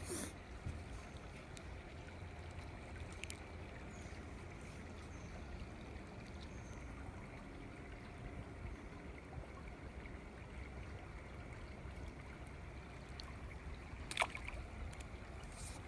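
Steady faint trickle of creek water, broken by a few sharp clicks from handling the fishing rod and catch, one about three seconds in and one near the end.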